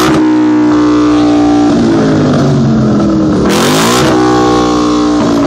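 Ford Mustang GT's 5.0-litre V8 revved hard while standing still, through a loud exhaust. It climbs quickly to high revs and holds there for about a second and a half, drops back, then climbs and holds again about three and a half seconds in.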